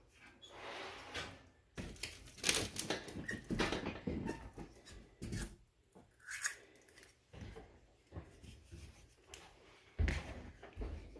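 Hands working damp shower-steamer mix: irregular scraping, rustling and small knocks as the tacky mix is clawed from the bowl and packed into a mould, with a low thump near the end.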